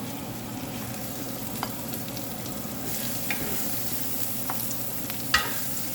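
Chili paste frying in oil in a pan, a steady sizzle with a few short sharp clicks scattered through it, the loudest near the end. The oil is separating out of the paste, the sign that it is nearly cooked.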